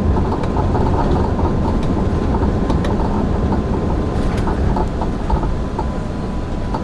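Cabin noise inside an Airbus A380 rolling on the ground after landing: a loud steady rumble with scattered rattles and clicks from the cabin fittings and a thin steady whine. The rumble eases slightly toward the end.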